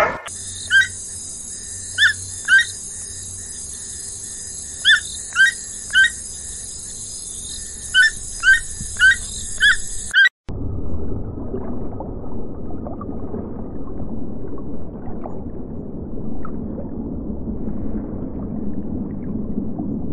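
Tropical forest ambience: a steady high insect hiss with about ten short, sharp bird calls scattered through it. It cuts off suddenly about ten seconds in, and a low, steady rush of water follows.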